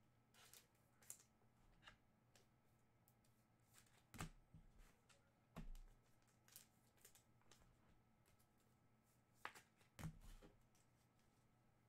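Faint handling of Topps Finest soccer trading cards: soft slides and light taps as cards are flipped through and set down, with a few louder knocks about four, six and ten seconds in.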